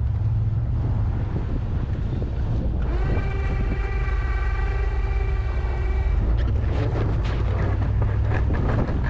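Ram pickup truck's engine and road rumble, steady and low, with a steady high-pitched whine coming in about three seconds in and stopping about three seconds later, then a run of clicks and rattles near the end.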